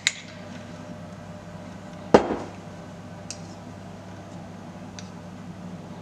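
A spoon knocks once sharply against a container, ringing briefly, while spooning Nutella into muffin batter. Two faint clicks follow, over a low steady hum.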